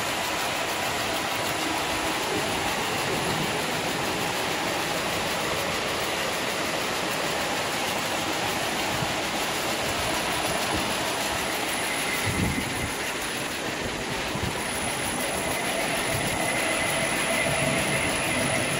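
Braiding machines running together: a steady, dense mechanical clatter of bobbin carriers travelling round their tracks, with a brief thump about twelve seconds in.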